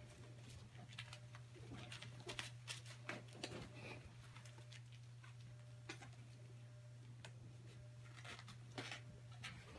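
Faint, scattered patter and rustle of young puppies' paws moving over puppy training pads, over a steady low hum.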